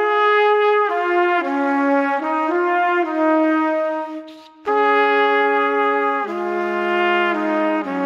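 Background music: a brass instrument plays a slow melody of long held notes that step from pitch to pitch, with a brief break about halfway through.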